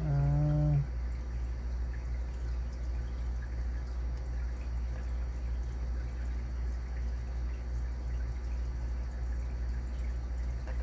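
Steady low electrical hum, with a short hummed "mm" from a man's voice in the first second. Faint scattered ticks from a Lishi pick-decoder working the pins of a Kwikset-keyway deadbolt.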